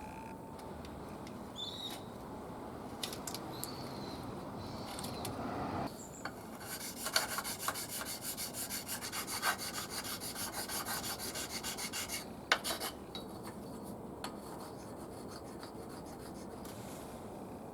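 Rhythmic rasping strokes, about three a second, from around six seconds in until about twelve seconds, over faint background noise, with scattered small ticks before and after: hand work rubbing or scraping on the motorcycle.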